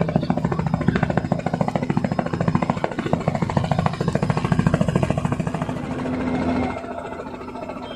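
Helicopter rotor chop, a fast steady pulsing over a low drone, which drops away a little about seven seconds in.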